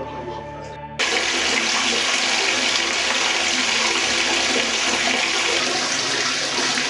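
Water running hard from a tap into a bathtub, starting abruptly about a second in and then running steadily.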